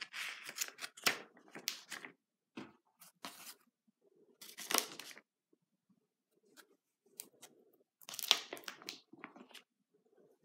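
Paper rustling and crinkling as a spiral-bound sketchbook's pages and a loose paper overlay are lifted and turned, in several short bursts with quiet gaps between; the loudest comes near the end.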